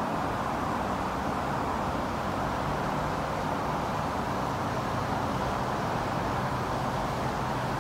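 Steady wash of road traffic from a busy multi-lane highway below, with a faint low steady hum underneath.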